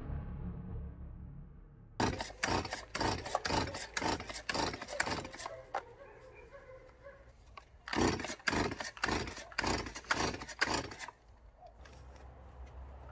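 Starter cord of a Stihl MS 170 chainsaw pulled over and over in two runs of quick rasping strokes, the engine not firing: the saw won't start.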